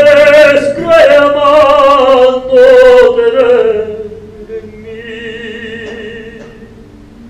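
A woman singing in a high, operatic voice: long held notes that step slowly lower, loud at first and softening about four seconds in to a quieter note that fades out near the end.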